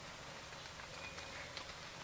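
Faint, irregular patter of raindrops ticking on leaves over a soft, steady hiss.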